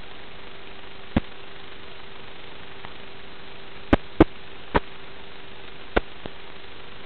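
Analog FPV video-receiver static: a steady hiss with a low hum tone running under it. It is broken by five sharp clicks, three of them close together about four seconds in.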